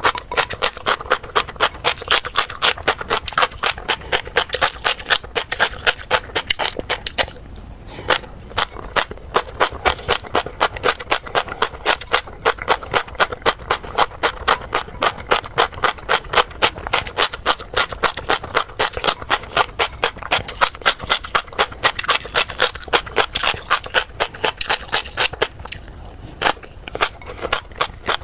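Close-miked chewing of tobiko (flying fish roe): a rapid, steady run of crunchy pops, several a second, with a short pause about eight seconds in.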